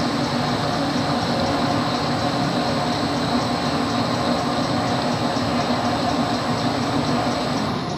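PS-160 semi-automatic toilet-paper rewinding machine running steadily, winding base paper into a log: a loud even mechanical whir and rumble with a steady hum. A thin high whine cuts off near the end.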